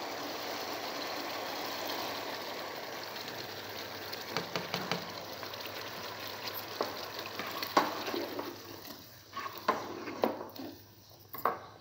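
Curry gravy sizzling in a pot as yogurt is poured into the hot oil. From about four seconds in, a spatula clicks and scrapes against the pot, and the sizzle fades toward the end.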